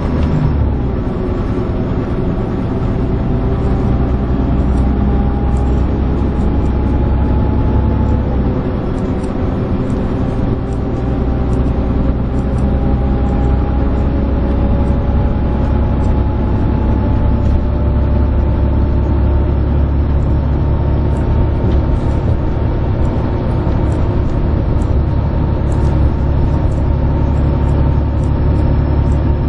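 Volvo B11RT coach's 10.8-litre six-cylinder diesel running at cruising speed, heard from inside the cabin as a steady low drone mixed with tyre and road noise. A faint whine rises slowly in pitch through the first half as the coach gathers speed.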